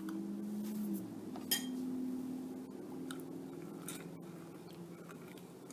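A spoon clinking lightly against a dish a few times while paste is scooped in, over a faint steady low hum.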